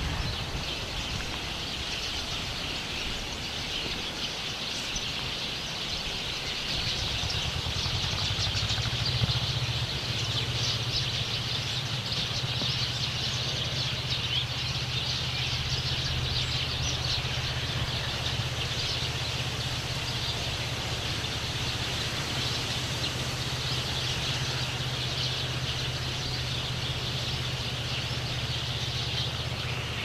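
Many small songbirds chirping and chattering continuously in a tree. A low, steady vehicle hum from a nearby road grows louder about seven seconds in and carries on beneath the birdsong.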